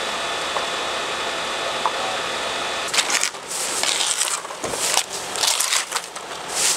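A vehicle engine running steadily. About three seconds in it gives way to irregular crunching and rustling of scattered crash debris and broken glass.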